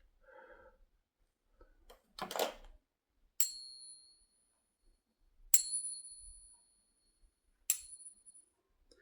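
A silver Peace dollar rung three times, each strike giving a clear, high ring that dies away over a second or two: a ping test of whether the coin is genuine silver. A short handling rustle comes before the first ring.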